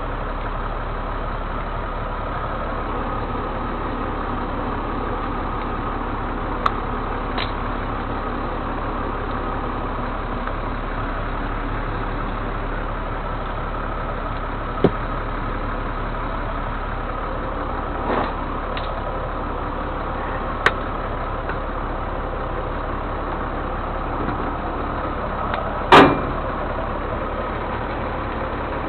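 A vehicle engine running steadily, with a few short sharp clicks and one louder knock near the end.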